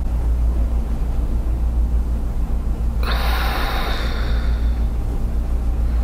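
A person's breath out, a gasp-like exhale of about a second starting three seconds in, over a steady low hum.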